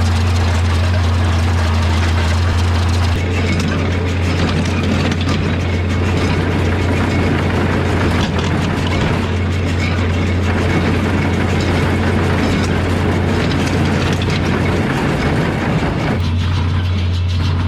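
A tractor engine runs steadily while a John Deere small square baler works hay, with the engine's deep hum and the baler's mechanical clatter. The deep hum is strongest near the start and again near the end, and the clatter is denser in between.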